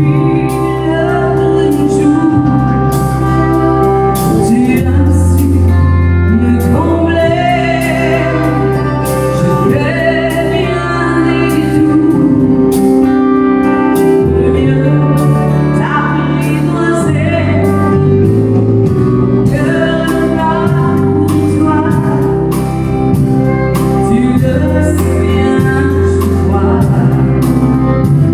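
Live country-western song: a woman singing lead into a microphone, backed by acoustic guitar and a band with drums.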